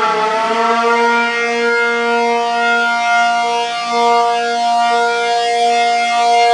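ACA P-50 outdoor warning siren sounding its steady multi-tone signal for a test, loud and sustained. The pitch dips briefly and recovers right at the start.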